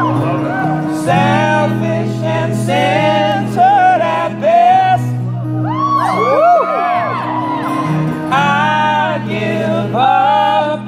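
Live acoustic duo: two steel-string acoustic guitars strummed steadily under male voices singing a slow melody.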